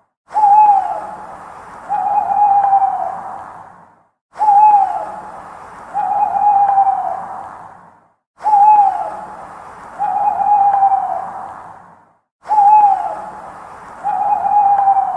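Owl hooting in a repeating two-part call, a short hoot that falls in pitch followed by a longer, steadier hoot, with an echoing tail. The pattern comes four times, about every four seconds, each time breaking off briefly into silence, as in a looped recording.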